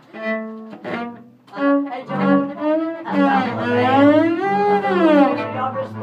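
Bowed string instruments, cello among them: a few short notes, then a held low note under a higher line that slides up and back down.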